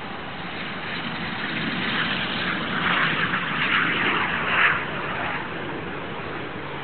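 Canadair CT-114 Tutor jet's single turbojet engine, a noisy jet rush that swells to its loudest about four to five seconds in and then falls back.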